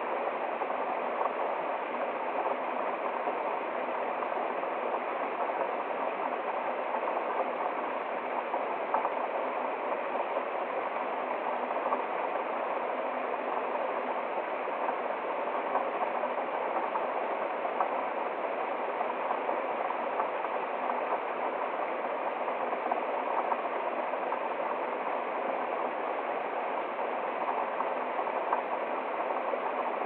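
Small forest stream cascading down a little waterfall over rocks: a steady rush of running water.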